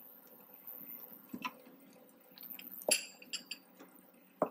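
Wooden spatula stirring a wet mixture of grated bottle gourd and milk in a frying pan: soft squishing with a few sharp taps and scrapes of the spatula on the pan, the loudest about three seconds in.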